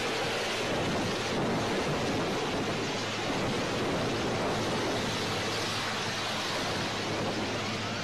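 A steady rushing noise with a faint low hum underneath.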